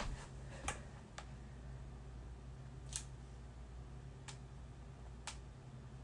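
About five faint, sharp clicks at irregular intervals: fingernails tapping on a tablet's touchscreen while a login is typed in. A steady low hum runs underneath.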